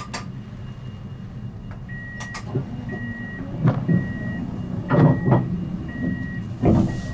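Siemens Avenio tram standing at a stop with its door warning beeping, a short high beep about once a second, over the steady low hum of the tram. A few loud knocks and a short hiss come in between the beeps.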